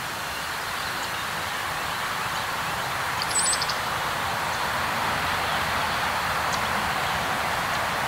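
Steady outdoor rustling hiss of grass and trees, with a short bird call of a few quick high notes about three and a half seconds in.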